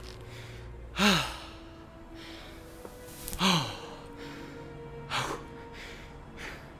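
A young man sighing heavily: two loud, breathy exhales that fall in pitch, about a second in and again about three and a half seconds in, then softer breaths. A music score underneath holds steady low tones.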